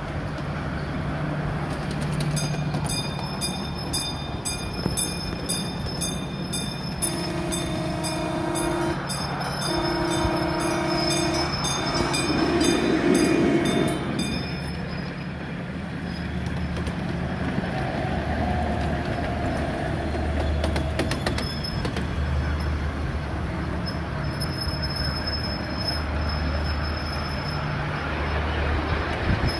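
A 1/8-scale ride-on miniature train running along its track with a low, steady rumble of wheels. From about two seconds in, a bell dings about twice a second for some twelve seconds. Midway, a train horn sounds three blasts: two long ones, then a third, louder one.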